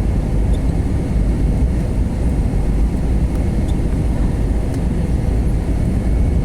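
Steady cabin noise inside an Airbus A321 airliner in flight: a deep, even rumble of engines and airflow, with faint steady hums on top.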